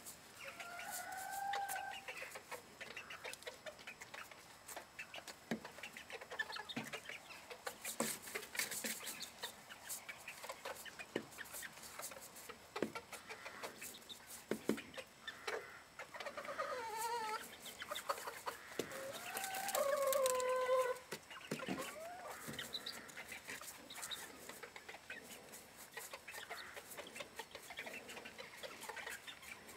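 Bantam chickens clucking and calling, with a burst of louder, longer calls about two-thirds of the way through, over many small scratchy clicks.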